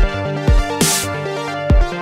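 Electronic background music with a steady beat: deep kick drums and a snare-like hit over sustained synth chords.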